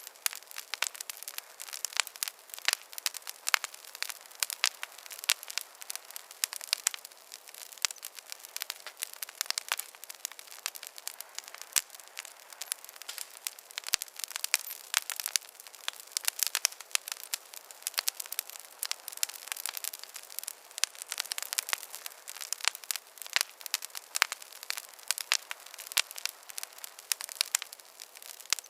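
Wood campfire crackling: a dense, steady stream of sharp snaps and pops over a faint hiss, with no low rumble.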